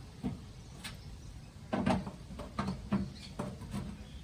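Brass tap body being fitted and screwed back into the tap: a run of small, irregular metal clicks and knocks, coming thicker from about halfway through.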